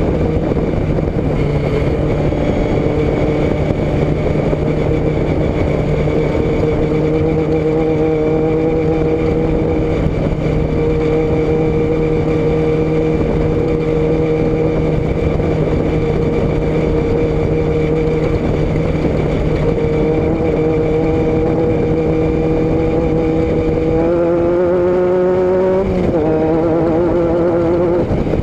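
Vehicle engine running at a steady speed under a heavy rush of road and wind noise. About 24 seconds in, the engine note rises as it accelerates, drops sharply near 26 seconds as a gear is changed, then climbs again.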